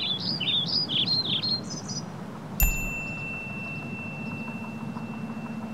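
Quick, repeated chirping bird notes for about the first two seconds, then a single bell-like ding struck about two and a half seconds in that rings on as one steady high tone.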